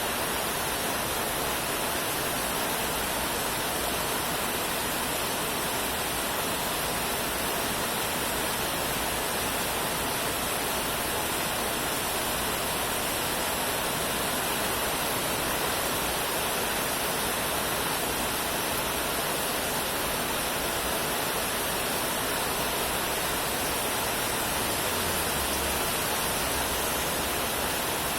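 Steady rain falling, an even unbroken hiss with no separate drops, thunder or other events standing out.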